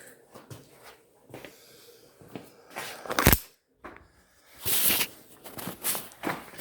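Scattered handling knocks and rustles in a small room, with one sharp loud knock about three seconds in.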